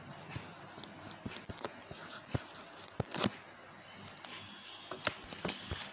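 Faint, irregular clicks and taps of a computer mouse being worked, several clusters a second or so apart, over low room noise.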